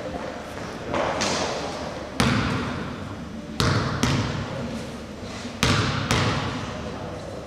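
Basketball bouncing on a hardwood gym floor, about six uneven bounces as a free-throw shooter dribbles before the shot, each bounce echoing through the large hall.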